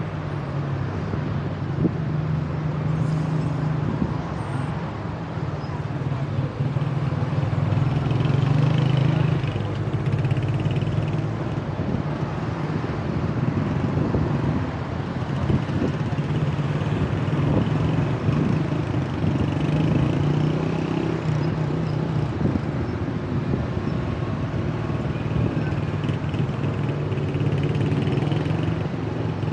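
Steady road traffic noise in slow, congested city traffic: a continuous low engine hum with the rush of nearby cars.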